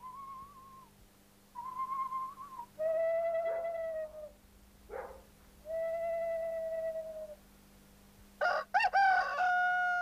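A few long, level held notes one after another, then a rooster crowing from about eight seconds in, its bending opening strokes ending in a long held final note: the call that marks dawn.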